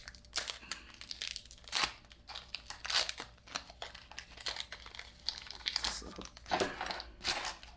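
Foil Pokémon card booster pack wrapper crinkling in the hands and being torn open, an irregular run of sharp crackles.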